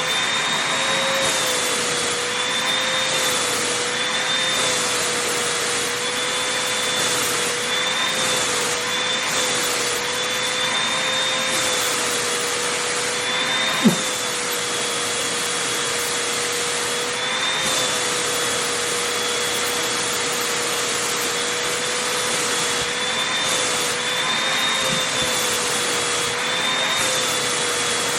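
Vacuum cleaner running steadily, its motor whine wavering slightly in pitch as it works over fabric, with one sharp click about halfway through.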